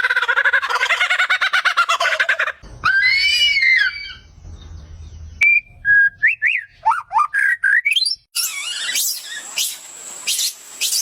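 Different animal calls, mostly birds, joined one after another with abrupt cuts. First a fast pulsing trill, then rising-and-falling chirps, then a run of rising whistled notes, then quick high chirps.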